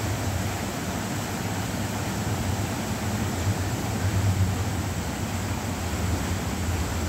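Steady splashing and hiss of fountain jets falling into an ornamental pool, with a low rumble underneath that swells slightly about four seconds in.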